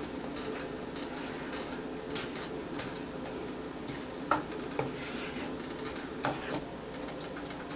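Wooden spoon stirring thick tomato sauce in a non-stick frying pan, scraping round the pan over a steady soft hiss, with a few light knocks of the spoon against the pan in the second half.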